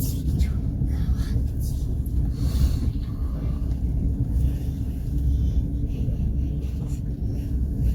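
Passenger train running along the track, a steady low rumble heard on board.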